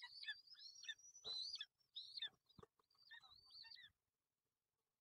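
Young long-legged buzzards calling at the nest: a rapid series of thin, high-pitched calls, many sliding down in pitch, that cuts off abruptly about four seconds in.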